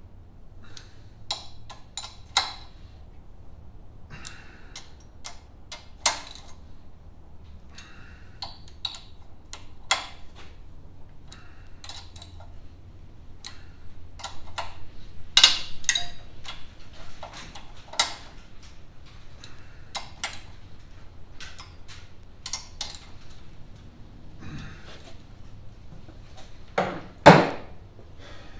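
Sporadic sharp clicks and clinks of metal hand tools and parts being handled, with no steady rhythm, and one heavier thump near the end.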